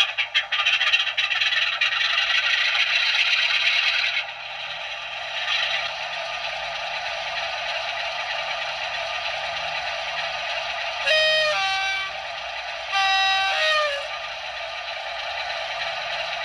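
Class 47 diesel sound from a model locomotive's DCC sound decoder, played through its original small speaker, thin with almost no bass. The engine sound runs louder for the first four seconds, then settles. Two short two-tone horn blasts sound about two seconds apart, past the middle.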